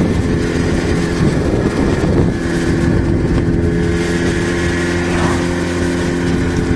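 Yamaha XJ6's 600 cc inline-four engine running on the road at a steady cruise. Its note wavers over the first couple of seconds, then holds steady.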